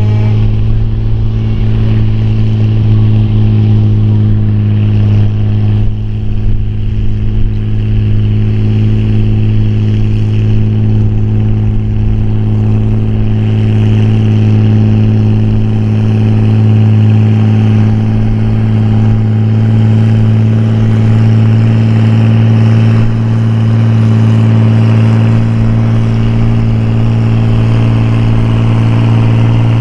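Farm pulling tractor's engine running loud and steady at an unchanging pitch, with a brief dip in loudness about six seconds in.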